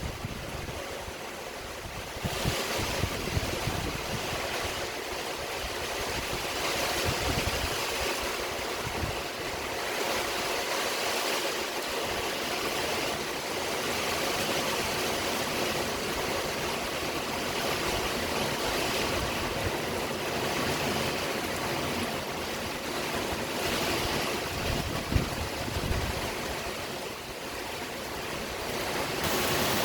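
Heavy rain from a passing cold-front squall, a steady dense hiss that gets louder about two seconds in, with gusts of wind buffeting the microphone now and then.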